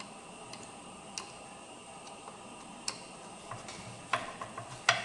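Scattered small clicks and taps of tools and parts being handled while the model loader's battery tray is refitted, a few at first and then a closer run of them, loudest near the end.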